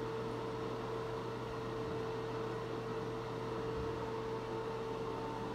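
Steady background hum made of constant tones under an even hiss, like a running fan or ventilation unit.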